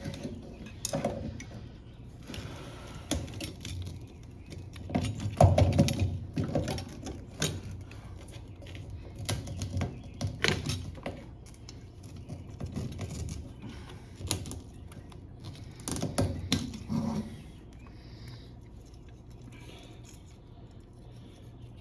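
Irregular clicks, knocks and rattles of metal parts being handled as a fuel pump assembly is worked on and opened up. The loudest knocks come about five to six seconds in and again around sixteen seconds, and it goes quieter near the end.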